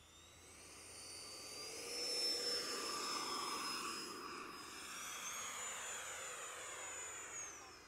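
Electric ducted fan of an FMS Rafale 64mm RC jet whining through a low pass: a rising rush that is loudest about two to three seconds in as the model goes by. Around five seconds in the whine steps up in pitch as the throttle opens for the climb, then drops again near the end.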